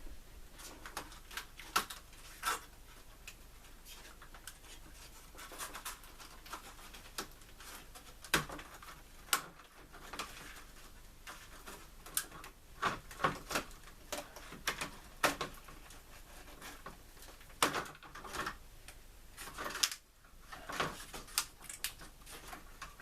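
Irregular small clicks, taps and knocks from hands handling the pieces of a model railway station being taken apart, some sharper knocks among lighter tapping.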